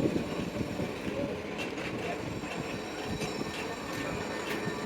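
Steady mechanical running noise with a few faint metallic ticks, typical of workshop machinery at work.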